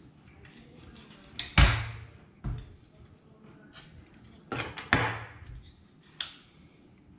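Aerosol gun-lubricant can spraying onto a rifle's action in two short hissing bursts a few seconds apart, with a knock between them and light clicks of metal.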